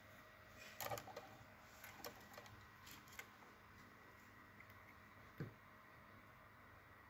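Near-silent room with faint clicks and taps of a wire and soldering iron being handled on a small circuit board on a wooden desk. The clicks cluster in the first three seconds, then a single soft low thump comes about five and a half seconds in.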